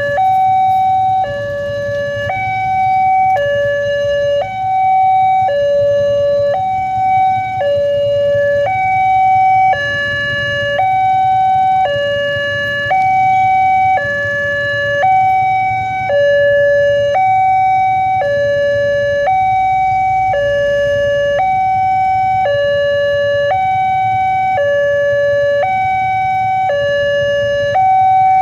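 Railway level-crossing warning alarm sounding its electronic two-tone chime, a higher and a lower tone taking turns about once a second: the signal that a train is approaching and the crossing is closed.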